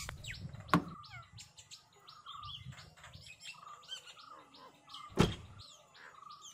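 Birds chirping steadily with many short, quick calls, with a sharp click under a second in and a car door thudding shut about five seconds in.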